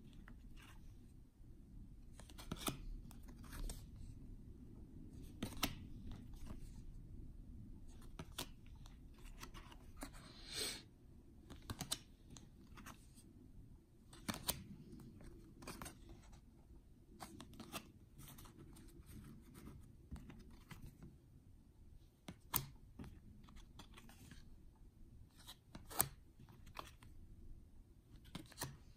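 2014 Topps Update baseball cards being flipped through by hand: irregular light snaps and slides of card stock as each card is moved off the stack. There is a longer swish about ten seconds in.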